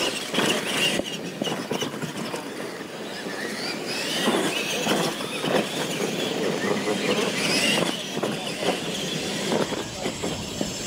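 Two R/C monster trucks racing side by side over dirt jumps. Their motors whine, rising and falling, with knocks of the trucks landing in the first second or so.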